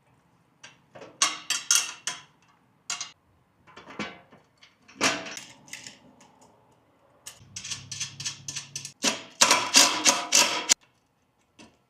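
Bursts of rapid clicking and knocking, like small hard parts or tools being handled, with a short low hum a little over halfway through.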